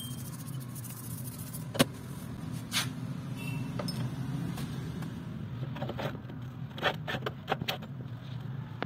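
Light metal clinks and knocks as motorcycle crankshaft flywheel halves are handled on a steel workbench, a few spread out and then a quick cluster near the end, over a steady low hum.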